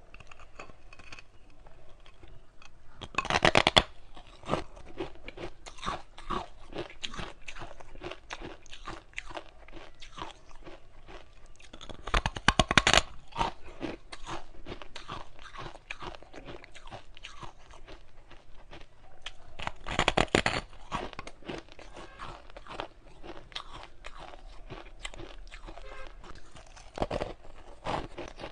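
Ice being bitten and chewed: three loud crunching bites, about three, twelve and twenty seconds in, each followed by a steady run of crackly crunching as the pieces are chewed.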